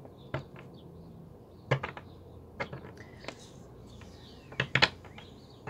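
Tarot cards handled and laid on a wooden table: a handful of short, irregular taps and clicks, the strongest about a second and a half in and near the end.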